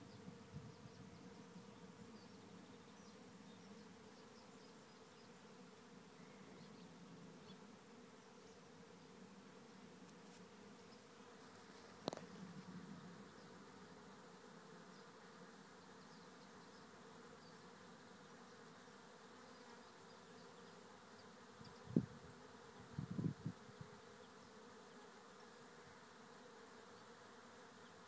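Faint, steady buzzing hum of a honeybee swarm in flight, thousands of bees circling as they settle into a trap hive. A sharp knock about a third of the way in, and a louder cluster of knocks later on.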